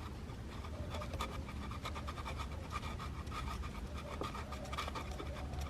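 Bondo body filler being mixed with its hardener, a spreader scraping and stirring it on a mixing surface in a run of soft, quick strokes.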